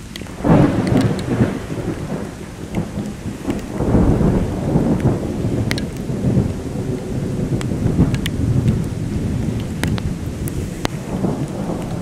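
Thunder over a heavy downpour: a sudden loud clap about half a second in rolls into a long rumble, which swells again around four seconds. Steady rain runs underneath, with scattered sharp drop ticks.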